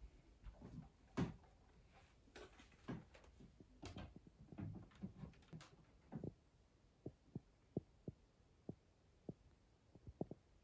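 Quiet room with soft footsteps and light knocks as a camcorder is handled and set down on top of a VCR, followed by a few faint, irregular ticks.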